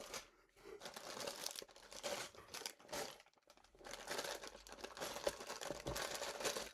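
Plastic parts bags from a brick-building set crinkling as they are handled, with a short lull about three seconds in.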